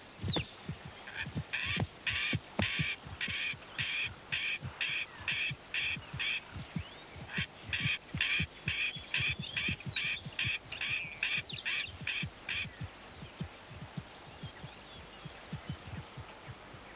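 Hooves of galloping giraffes and antelope thudding irregularly on dry ground. Over them a bird calls in a long run of harsh, rapid notes, a little over two a second, broken once and stopping a few seconds before the end.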